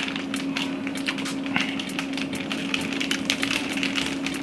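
Chewing and wet mouth clicks from people eating a cream-filled muffin, heard as many small irregular crackles, over a steady hum.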